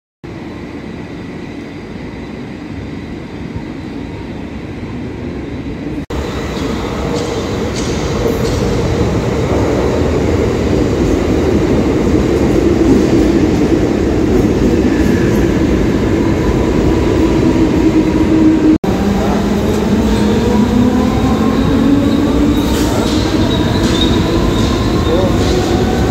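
Mumbai suburban electric local train (EMU): a steady rumble that grows louder, then, after an abrupt break about two-thirds in, a motor whine rising in pitch as the train gathers speed.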